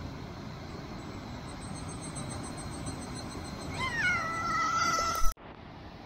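A pet animal's long, high-pitched call, sliding down at first and then held on one note for about a second and a half, over steady background noise. It ends in a sharp click and the sound cuts off abruptly.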